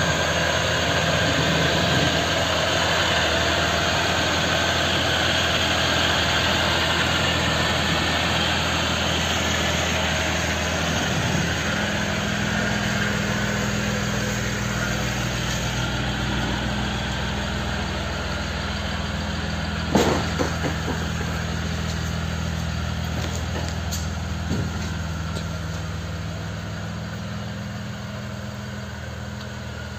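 Mercedes OM642 3.0-litre V6 turbo-diesel of a 2007 Sprinter van running steadily on its freshly replaced engine. A single sharp knock comes about twenty seconds in, and the engine sound grows fainter near the end as the van pulls away.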